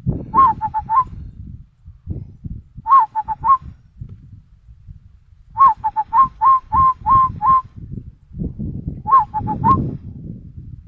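A man whistling an imitation of a zebra dove's (perkutut) cooing song in four phrases of quick, clipped coo notes; the third phrase is the longest. It is given as the local type of perkutut song rather than the Bangkok type.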